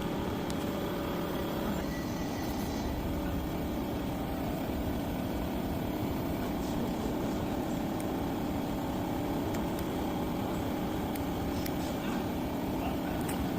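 Steady low mechanical rumble at an even level, with a few faint clicks.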